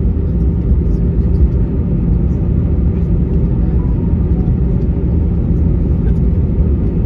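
Steady low rumble of an Airbus A320's engines and rolling wheels, heard inside the cabin as the airliner moves along the runway after touchdown.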